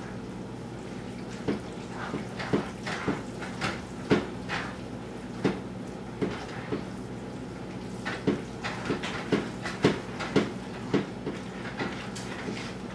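A spoon knocking and scraping against a pan as a thick, overfull pasta and cheese mixture is stirred. The clacks are irregular, with a thinner spell near the middle, over a steady low hum.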